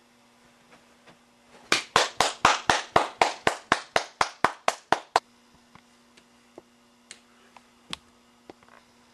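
Hands clapping in a quick, steady rhythm, about four claps a second, some fifteen in all, starting a little under two seconds in and stopping at about five seconds, each clap ringing briefly in a small room.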